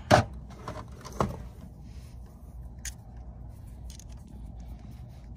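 Sharp clicks of wires and connectors being pulled off inside an air handler's sheet-metal control box: a loud one at the start, a second about a second later, then fainter ticks of handling, over a steady low hum.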